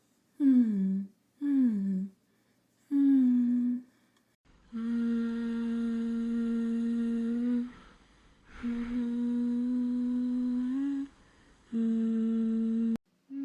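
A humming voice. It starts with two short falling hums and a brief held hum, then moves to three long steady hums at one low pitch. The last one cuts off abruptly.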